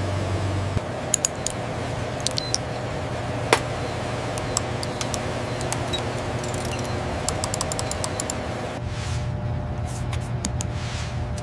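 Laboratory room ambience: a steady machine hum with many scattered light clicks and clinks. About nine seconds in the hum changes and two soft swishes are heard among further clicks.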